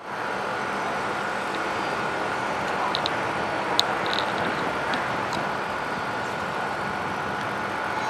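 Steady city traffic noise, with a few faint short high ticks about three to four seconds in.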